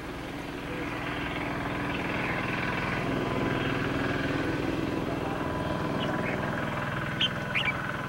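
A motor vehicle's engine passing, its steady drone swelling to a peak in the middle and then easing off. A few short, sharp bird chirps come near the end.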